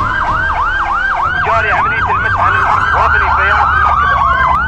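Police car siren in a fast yelp, rising and falling about four times a second, over a steadier tone that slowly slides down in pitch, with a low rumble underneath.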